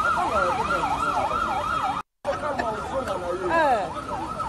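Electronic vehicle siren in yelp mode, its pitch swooping up and down about three times a second, cutting out for a moment about two seconds in, with a few slower falling tones near the end.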